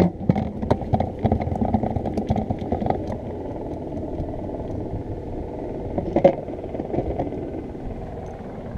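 Clattering handling noise: quick knocks and taps on a plastic bucket lid, thick in the first few seconds and again briefly about six seconds in, over a steady low rumble.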